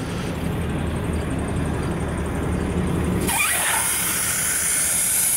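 A vehicle engine idling with a low hum. About three seconds in, a loud steady hiss of air starts: an SUV tyre being deflated to lower its pressure for driving over sand dunes.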